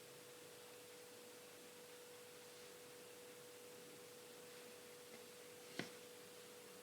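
Near silence: a faint steady hum on one pitch over light hiss, with a single light click about six seconds in.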